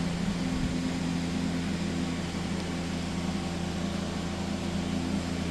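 Steady electrical hum of running shop machinery: a constant low drone with a few steady, higher humming tones over it and no change throughout.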